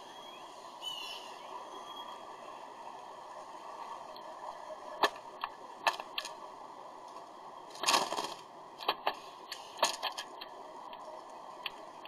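Sharp clicks and taps of a northern cardinal pecking and cracking sunflower seeds in a feeder tray: a few single clicks, then a quick flurry about eight seconds in, over a steady outdoor hiss.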